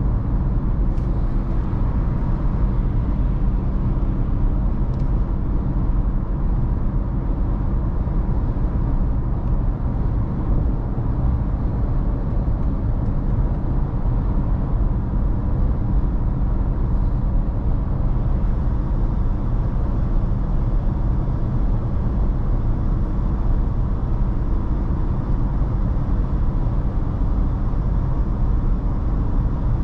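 Ford Ranger Raptor heard from inside the cabin while cruising on the highway: a steady low engine drone mixed with road and tyre noise.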